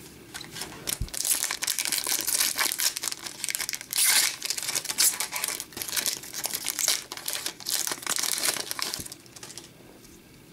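Foil wrapper of an Upper Deck hockey card pack being torn open and crinkled by hand: a crackly rustle with many small sharp crackles, starting about a second in and stopping about a second before the end.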